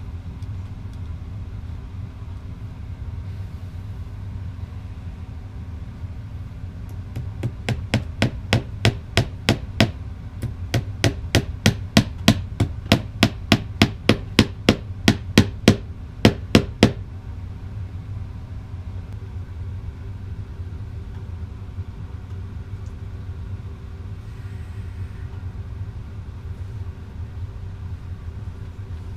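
A rapid run of sharp knocks, about three a second, lasting some ten seconds with a short break partway, over a steady low hum.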